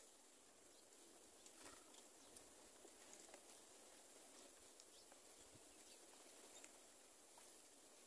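Near silence: a faint outdoor hiss with a few scattered soft ticks.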